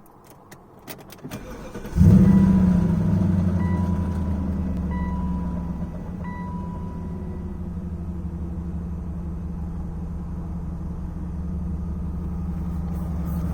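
BMW M62 4.4-litre V8 starting: a few clicks, then it catches about two seconds in with a brief flare of revs and settles to a steady idle, with a few short beeps early on. The owner posts it as a cold-start timing chain rattle.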